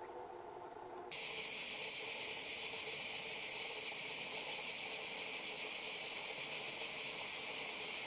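Loud, steady, high-pitched chorus of cicadas, starting abruptly about a second in after a quieter start.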